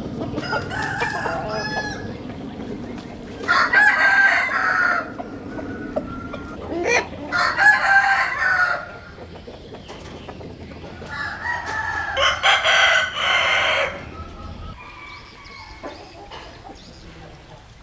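Roosters crowing: three loud crows a few seconds apart, with a softer call about a second in.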